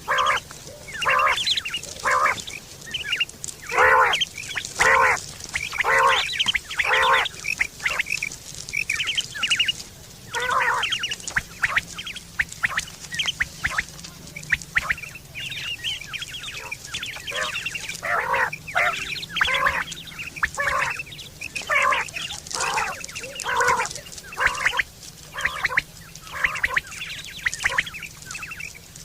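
Quail calling: many short, pitched notes in quick groups, sparser for a few seconds in the middle.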